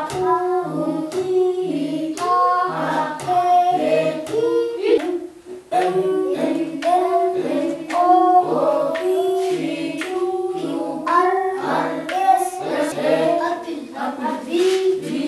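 A group of children singing in unison, chanting the syllables of the Amharic alphabet (ha, hu, hi, ha, he…) to a simple repeating tune, one syllable at a time at an even pace. There is a short break about five seconds in.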